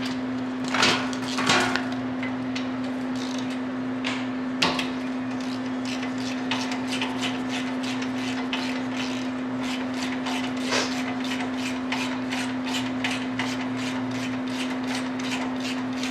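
Metal tool knocks, then a long run of rapid, even clicks from a ratchet wrench turning out the 18 mm brake caliper bolts, over a steady background hum.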